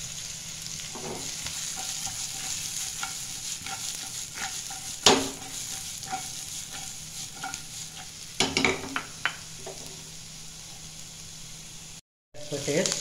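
Chopped onion, capsicum and spring onion sizzling in oil in a non-stick pan as they are stirred and tossed, a steady frying hiss under scrapes and clatters against the pan. A sharp clatter about five seconds in is the loudest, and a run of quicker clicks and scrapes follows after about eight seconds; the sound cuts out for a moment near the end.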